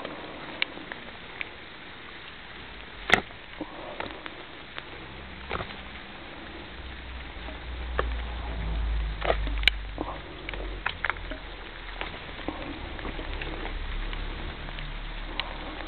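Steady light rain pattering, with scattered sharp taps throughout, two louder ones about three and ten seconds in. A low rumble rises through the middle and eases off.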